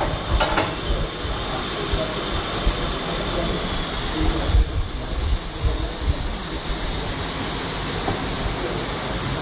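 Steady hissing and low rumbling of workshop background noise, with a faint knock about half a second in.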